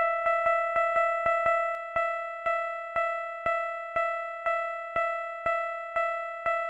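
Japanese railroad crossing alarm bell ringing the same clanging note over and over. The strikes come quickly at first and settle to about two a second after about two seconds.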